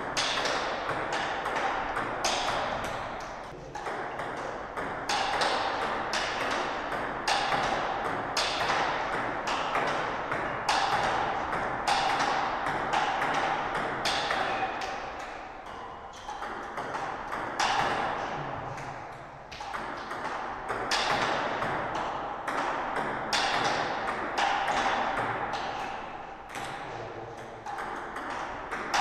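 Table tennis rally: a plastic ball struck back and forth off rubber-covered paddles and bouncing on the table, in a quick even rhythm of sharp pings. Short breaks come between points.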